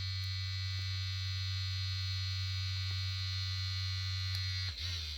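PMD facial cleansing device's vibration motor buzzing steadily in its second massage mode. Near the end it changes to a pulsing, on-off buzz as the next mode comes on.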